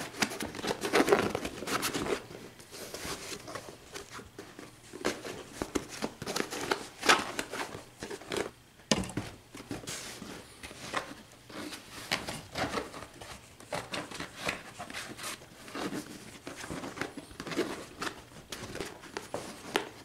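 Waxed cotton canvas rustling and crinkling in irregular handfuls as a sewn haversack is pushed and pulled right side out by hand. The stiff waxed fabric makes it hard to turn.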